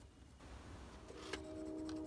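Faint handling of a tape measure and pencil on a wooden board, with a small click about a second in. A faint steady hum of several tones comes in about a second in.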